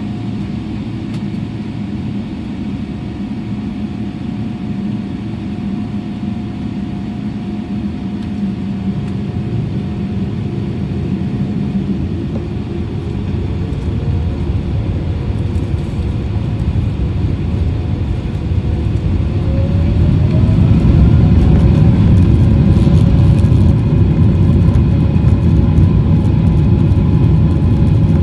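Boeing 777-300ER's GE90 turbofan engines heard from inside the cabin, spooling up for takeoff. A steady hum first, then a rising whine from about halfway through, and about two-thirds in a loud steady rumble of full thrust and wheels on the runway as the takeoff roll gathers speed.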